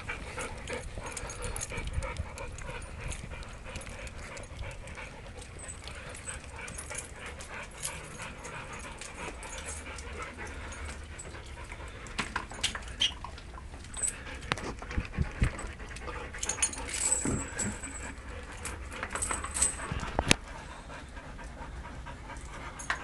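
Dogs panting, with scattered short clicks and knocks that come thicker in the second half.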